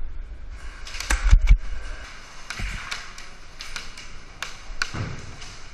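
Scattered sharp clicks of airsoft BBs striking the wall in front, with a louder cluster of knocks about a second in.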